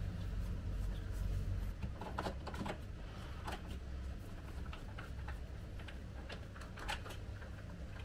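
Scattered light clicks and knocks of hands adjusting a wheeled washing-machine rack at its casters and feet, over a low rumble that is heavier for the first couple of seconds; the sharpest knock comes near the end.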